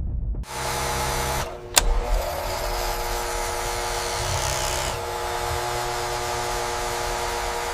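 A machine running steadily: a motor-like whir with a hiss and a steady hum, starting about half a second in, with one sharp click a little over a second later.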